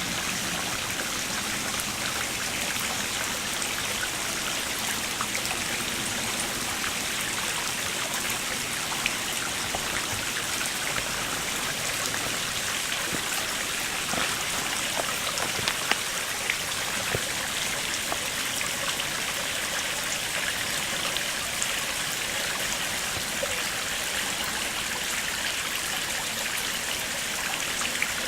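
Shallow stream running steadily, with a constant wash of water and many small drips and splashes ticking through it.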